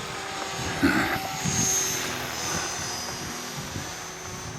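Electric model helicopter flying overhead: the high-pitched whine of its motor and rotor, swelling about a second or two in and then slowly fading.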